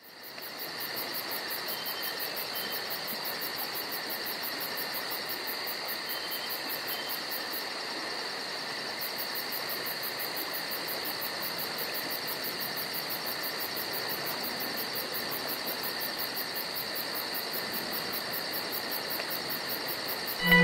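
Steady insect chorus with a fast, even pulsing trill, holding one level throughout. A few short high chirps come about two and six seconds in.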